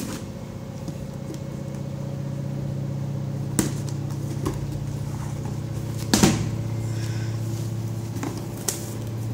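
Steady hum of a washing machine running, slowly growing louder, with a few knocks and scrapes of a cardboard box being opened, the loudest about six seconds in.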